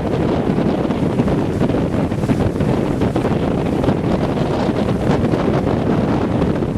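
Heavy tropical rain pouring steadily, with wind buffeting the microphone.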